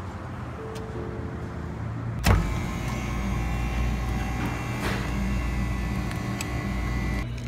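Soft-serve frozen yogurt machine dispensing into a paper cup. A sharp click about two seconds in, then the machine's motor hums steadily and cuts off suddenly near the end.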